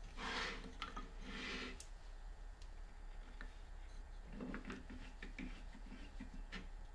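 Wooden drill-press vise and work pieces being handled on a wooden table: two brief sliding scrapes in the first two seconds, then a run of light wooden taps and clicks as a thin strip is set between the vise's wooden jaws.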